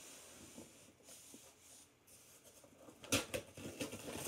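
Cardboard shipping box being handled quietly, then, about three seconds in, tape and paper ripping as it is pulled off the box to open it.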